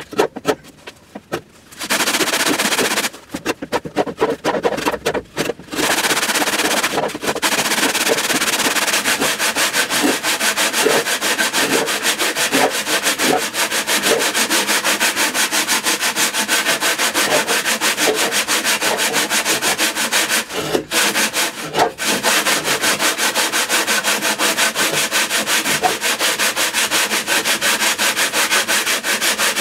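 Sandpaper rubbed over a spruce cello top in rapid, continuous back-and-forth strokes, stopping briefly a few times in the first seconds and once about two-thirds through.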